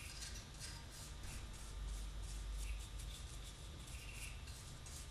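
Faint, irregular scratchy strokes of a fine paintbrush working varnish into carved wooden fretwork, several a second, over a low steady hum.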